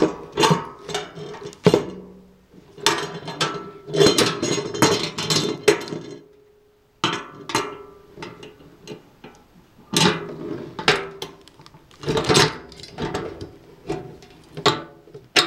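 White metal mesh tray and tubular steel handle bar of a Recollections Lexington 3-tier rolling cart clanking and knocking against each other and the table as they are handled and fitted together. The sound is an irregular run of metallic knocks, some with a short ring.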